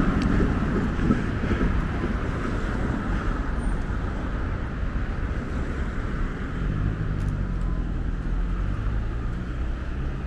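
Street traffic: a steady wash of passing cars on a city road, with a vehicle engine's low hum coming in about two-thirds of the way through.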